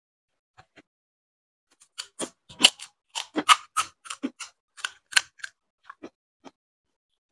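Crisp fried fuchka (pani puri) shells crackling and crunching in a quick run of sharp crackles about two seconds in, which fades to a few faint ticks near the end.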